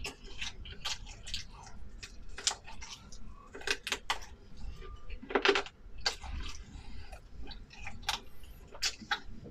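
A person eating close to the microphone: chewing, with irregular sharp clicks and clinks of utensils against dishes.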